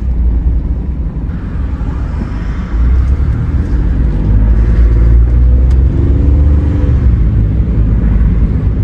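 Car engine and road rumble heard from inside the cabin while driving, getting louder about three seconds in as the car gathers speed.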